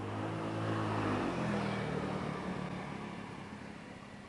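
A motor vehicle passing by: engine and tyre noise swell to a peak about a second in, the engine pitch drops as it goes past, then it fades away.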